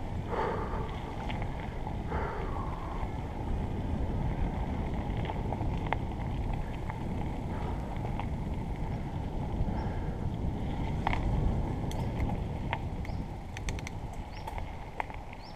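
Mountain bike rolling down a gravel track: knobby tyres crunching over loose stones with a steady rumble, and scattered sharp clicks and rattles from stones and the bike.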